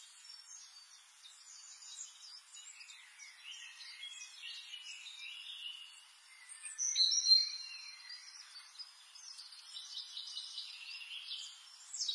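Birds chirping and singing, short high calls and trills throughout, with one louder call about seven seconds in.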